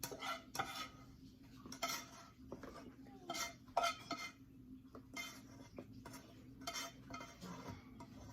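A utensil scraping and clinking against a bowl and dishes in short, irregular strokes as food is stirred and scooped.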